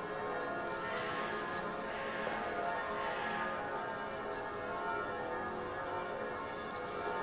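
Church bells ringing, several bell tones sounding together and overlapping, humming on without a break.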